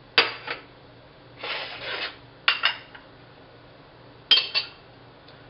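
Ceramic dishes clinking and a plate scraping on a stone countertop: a scrape and three pairs of sharp clinks, the last pair about four seconds in.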